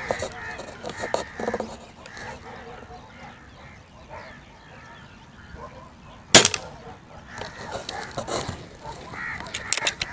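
A single shot from an LB-600 spring-piston air rifle about six seconds in: a sharp crack with a short ringing after it. Near the end come a few quick metallic clicks as the break-barrel is opened to cock it for the next pellet.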